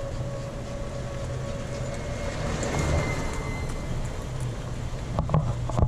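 Golf cart driving along a paved road: a steady motor hum with tyre and wind rush, and a few short knocks near the end.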